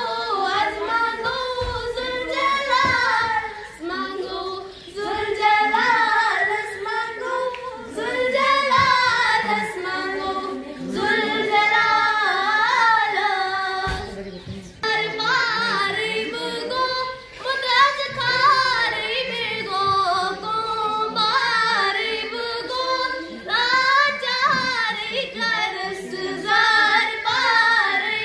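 A young girl singing a song into a handheld microphone, in long held notes that waver in pitch, with short breaks between phrases.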